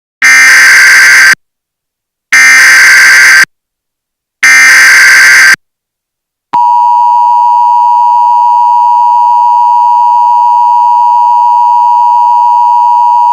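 Emergency Alert System SAME header: three one-second bursts of buzzing digital data tones, a second apart. About six and a half seconds in, the steady EAS attention tone starts. Together they announce a severe thunderstorm warning.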